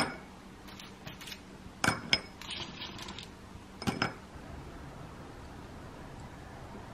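Hard, over-dried sweet potato strips dropped by hand into a small glass bowl, clinking sharply against the glass: once at the start, twice about two seconds in, and twice more about four seconds in.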